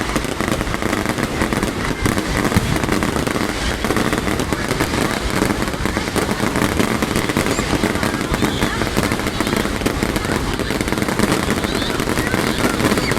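New Year's Eve fireworks crackling and popping in a dense, unbroken stream of rapid bangs at a steady loudness.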